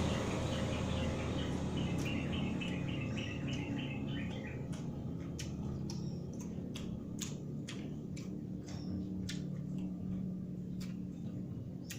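Sharp wet clicks and smacks of a person chewing food close to the microphone, scattered irregularly. A bird chirps a rapid run of repeated notes over the first few seconds, over a steady low hum.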